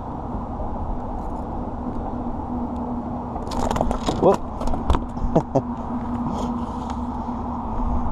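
A freshly caught porgy (scup) dropped onto a wooden pier deck, making a quick cluster of sharp slaps and clicks for about two seconds in the middle, over a steady low hum and rumble.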